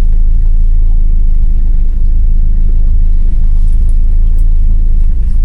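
Toyota Hilux 4WD driving slowly along an overgrown bush track: a loud, steady low rumble of engine and tyres.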